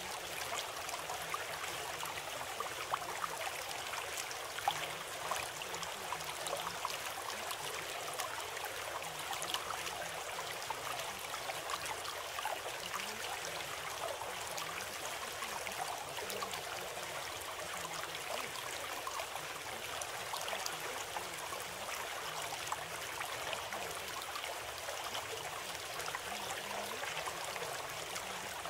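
Steady sound of running water, like a flowing stream, with a fine flickering texture and no change in level.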